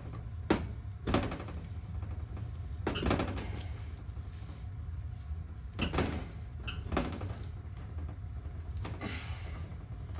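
Scattered clinks and knocks of a plumber's tools and fittings on steam boiler piping, about seven sharp strikes, over a steady low hum.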